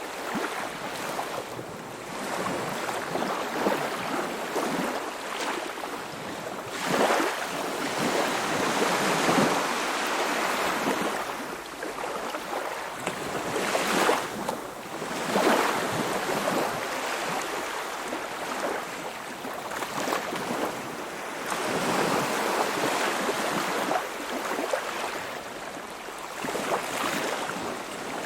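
Baltic Sea waves splashing and washing against the shore in uneven surges every few seconds, the strongest splashes coming about 7, 9, 14 and 15 seconds in.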